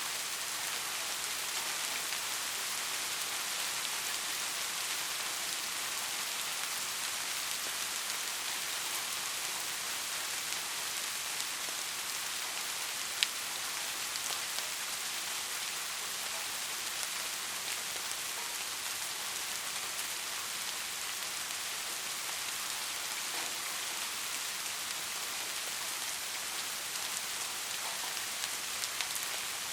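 Steady rain falling on a surface, an even hiss with fine individual drop ticks; a single sharp drip or click stands out about 13 seconds in.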